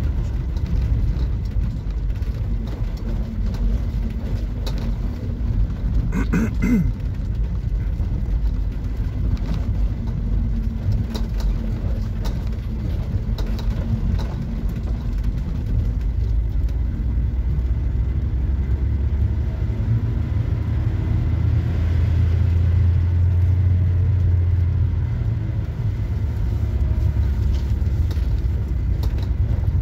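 Camper van driving down a dirt track: a steady low rumble of engine and tyres on the rough surface, with occasional knocks. The low rumble grows louder for a few seconds about twenty seconds in.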